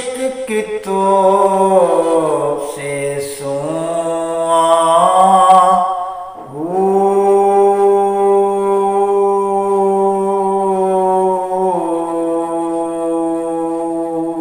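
A man's solo voice singing a Punjabi Sufi kalam unaccompanied, in long drawn-out notes: a sliding, ornamented phrase, a brief break about six seconds in, then one long held note that steps slightly lower near the end.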